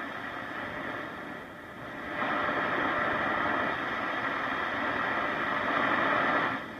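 Static hiss from a 1942 Zenith 8S661 console radio's speaker as the dial is tuned between stations. It grows louder about two seconds in and drops away near the end.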